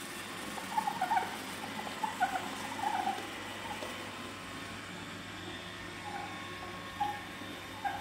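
Roomba robot vacuum running with a steady hum, with short squeaky chirps several times over it.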